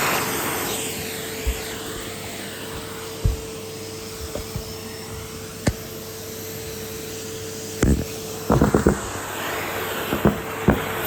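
Numatic Henry cylinder vacuum cleaner running with a steady hum. Several sharp knocks break through it, and a quick burst of clattering hits comes about eight and a half seconds in.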